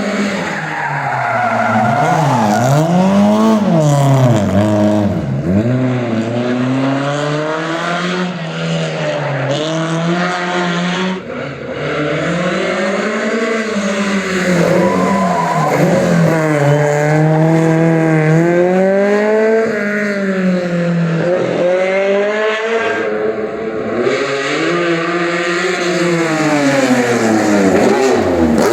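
Historic rally car engine revved hard up and down over and over while the car drifts and spins its wheels, with tyre squeal under the engine note.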